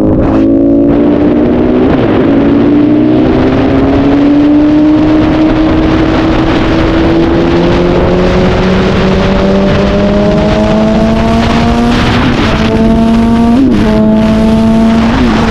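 Honda CBR1000RR inline-four engine under load through a straight-through exhaust, its pitch rising slowly and steadily for about twelve seconds as the bike accelerates in one gear. Near the end the note dips sharply three times, like quick gear changes, then holds steady, with wind noise underneath.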